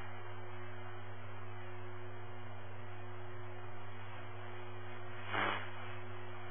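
Scanner radio between transmissions: a steady hiss with a low electrical hum, and one brief burst of noise about five seconds in.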